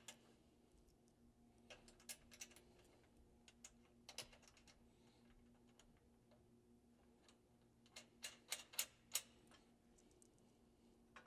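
Faint, scattered light metallic clicks and taps of small hardware being handled: a button-head bolt, washer and serrated nut fitted by hand into a metal rack rail. There are a few isolated clicks, then a quick run of about five clicks some eight seconds in.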